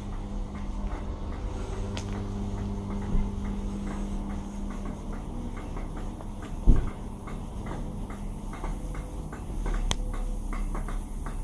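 ScotRail electric multiple unit standing at the platform, its on-board equipment humming steadily in a low, even tone. Faint regular clicks run through it, and a single dull thump comes a little past the middle.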